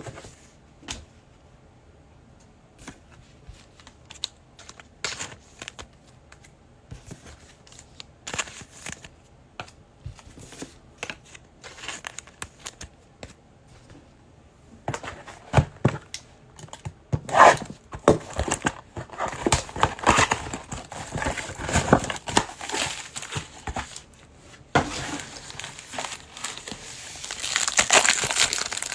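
Scattered light clicks and taps of trading cards being handled, then from about halfway on, louder crinkling and tearing of plastic card pack wrappers being ripped open.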